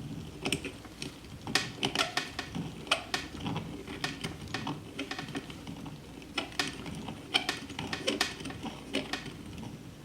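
Deburring tool shaving the burrs from the cut end of copper pipe: irregular sharp metallic clicks and short scrapes, several a second.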